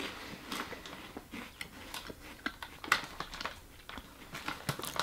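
A person chewing small chocolate cereal bites, with irregular soft crunches; the snack is slightly crisp but fairly soft.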